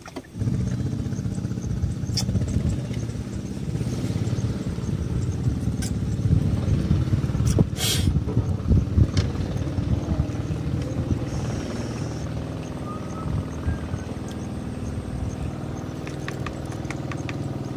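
A small engine running steadily, starting abruptly about half a second in, with a sharp tap about eight seconds in.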